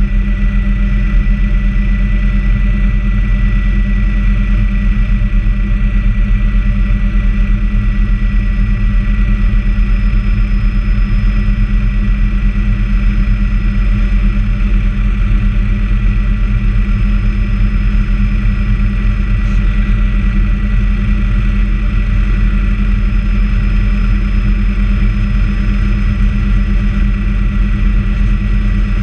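Bell 206A JetRanger helicopter in flight, heard inside the cabin: a steady heavy low drone with a fast beat from the main rotor and turboshaft engine, and a steady high whine over it.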